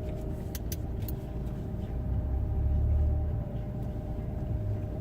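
Cabin noise in a moving 2018 Chrysler Pacifica Hybrid: a steady whine over low road rumble, the whine heard while the gas engine runs as a generator. A couple of light clicks about half a second in, and the rumble swells briefly in the middle.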